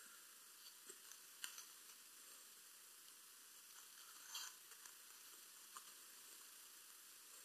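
Near silence: a steady faint hiss with a few brief, faint crackles scattered through it.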